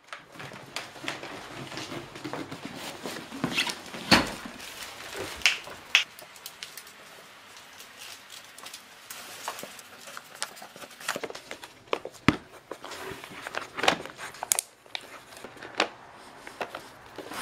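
A cardboard shipping box and its packaging being handled and unpacked: scattered knocks, scrapes and rustles, with a few sharper knocks, the loudest about four seconds in.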